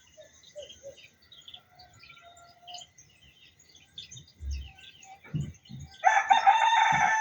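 A rooster crows once, loud and long, starting about six seconds in. Before it, small birds chirp faintly, and a few low thumps come and go.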